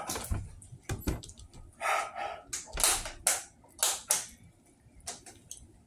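A few sharp clicks, then a series of about six short breathy puffs, as from someone eating, with quiet gaps between them.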